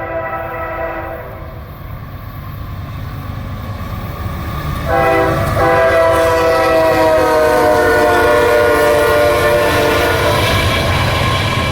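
Nathan K5H five-chime air horn on a GE AC4400CW diesel locomotive: one horn blast ends about a second in, then a long, loud blast starts about five seconds in and slides lower in pitch as the locomotive passes (Doppler effect). Under it, the low rumble of the passing train.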